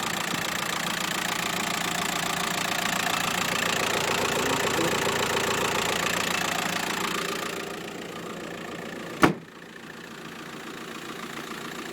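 Volkswagen Transporter T5's 1.9 TDI four-cylinder diesel idling evenly, heard with the bonnet open, with no knocks or stray noises. It gets quieter about seven seconds in, and a single sharp knock sounds about nine seconds in.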